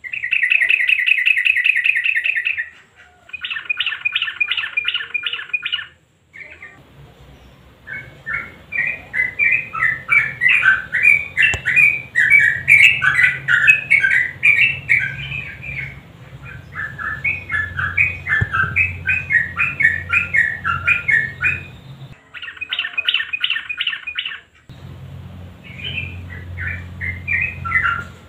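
Yellow-vented bulbuls (trucukan) singing in spliced segments that start and stop abruptly. The track opens with a fast, even trill of repeated notes, then shorter clusters of paired notes. A long run of loud, bubbling, warbled phrases follows, and a low hum sits under some of the segments.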